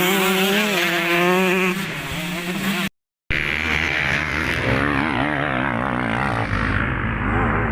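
Motocross bike engines revving hard, their pitch repeatedly rising and falling as the throttle is worked. The sound cuts out completely for a moment about three seconds in.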